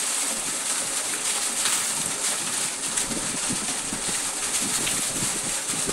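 Steady rushing splash of water falling into a stone-lined well.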